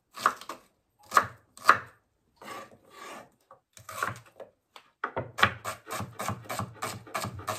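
Kitchen knife chopping red onion on a wooden cutting board. A few separate cuts come first, then from about five seconds in a quick, even run of chops, about five a second.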